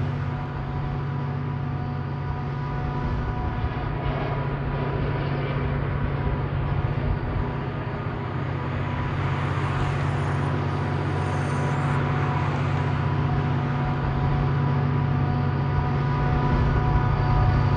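Diesel locomotive running with a steady engine hum over rumbling noise, getting a little louder toward the end.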